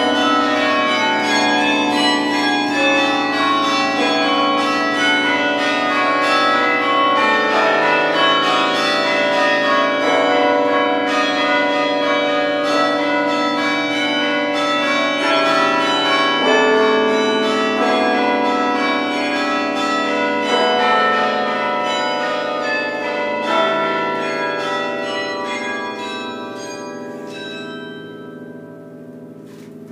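Duke Chapel carillon being played from its baton keyboard: a tune of struck bell notes that overlap as they ring on. Near the end the playing stops and the last notes ring out and fade over several seconds.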